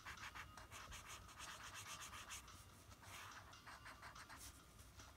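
Felt-tip marker scribbling on folded origami paper, colouring in a small patch in rapid, faint, scratchy strokes.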